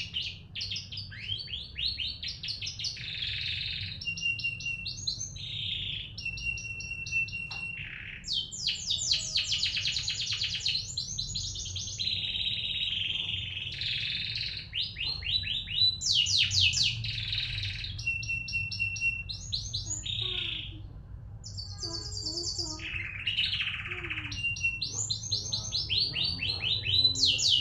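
Domestic canary singing a long, continuous song of fast trills and rolls, broken by short steady whistled notes: a lure song meant to set other canaries singing.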